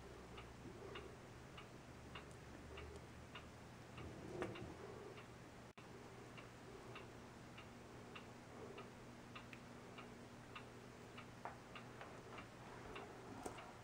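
Faint, steady ticking of a clock, a little under two ticks a second, over quiet room hum. About four seconds in there is a brief soft rustle as the necklace's silver beads are handled.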